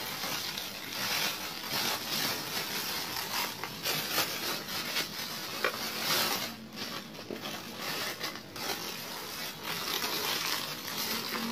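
Thin plastic bag crinkling and rustling as a helmet is worked out of its wrapping, the noise coming and going unevenly.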